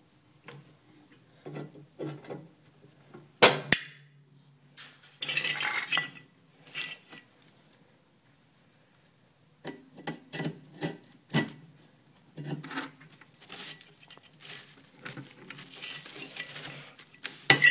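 Hand cutters snipping through a mini fridge compressor's refrigeration lines and metal clanking as the compressor is handled: a series of separate clicks and clanks, the sharpest about three and a half seconds in.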